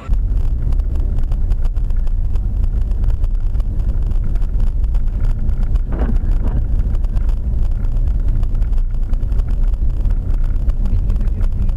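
Steady low rumble of a moving vehicle, with wind buffeting the microphone.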